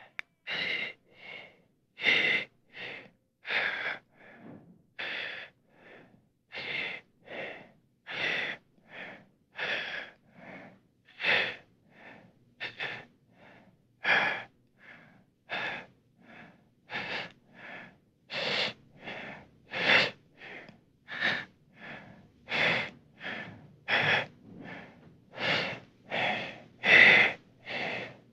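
A person's quick, shaky, anxious breathing, the scared panting of someone hiding. The breaths are short and evenly spaced, about one and a half a second, and they grow louder in the second half.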